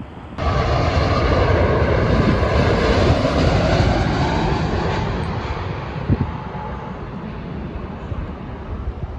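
Jet airliner engines roaring as a plane passes. The roar starts abruptly about half a second in, is loudest for the next few seconds, then slowly fades.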